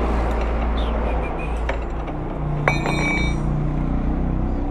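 A mechanic's hand tool working at a motorcycle's rear wheel axle, with one sharp metallic clink that rings briefly a little past halfway through, over a steady low rumble.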